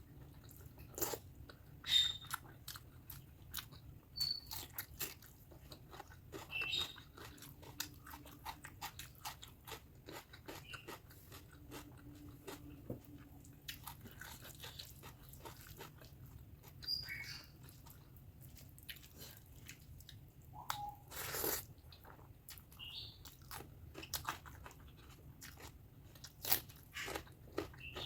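Close-miked chewing and biting of spicy pork fat curry with basmati rice: many small wet clicks and smacks, with one louder, longer noise about three-quarters of the way through.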